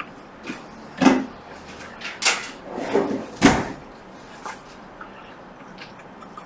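A handful of short knocks and clatters, as of tools and objects being picked up and set down on a workbench, the loudest about a second in and at about three and a half seconds, then quiet handling.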